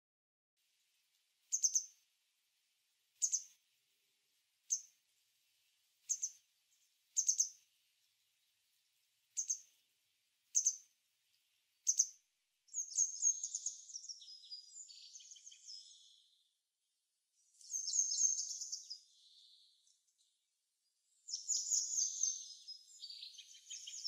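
Birds calling: a string of short, high call notes a second or two apart, some doubled, then from about halfway through, bursts of rapid high twittering song with short pauses between them.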